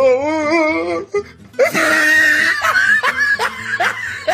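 A string of meme sound-effect clips: a wavering, vibrato voice note lasting about a second, a brief pause, then a loud burst of music with a held high tone and quick rising swoops, mixed with laughter.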